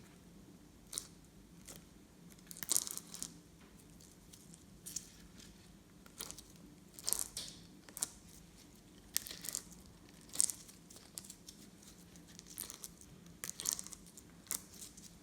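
Glossy slime being worked by hand, giving quiet, irregular sticky pops and crackles, some in small clusters.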